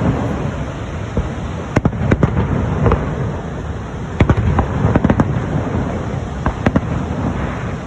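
Fireworks going off: a steady rumble of distant bursts with many sharp cracks and pops at irregular intervals, some coming in quick clusters.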